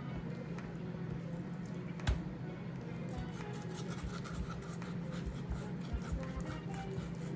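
Raw chicken leg quarters being trimmed of fat: small cutting, scraping and squishing noises, with one sharper knock about two seconds in, over a steady low hum.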